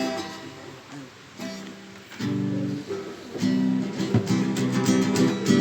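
Acoustic guitar playing chords, sparse and quiet at first, then strummed in a steady rhythm from about three and a half seconds in.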